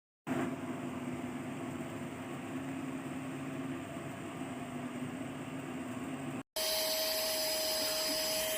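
Portable cordless car vacuum cleaner running steadily, a motor whine over a rush of air. About six seconds in it cuts out for an instant and comes back with a higher, steadier whine.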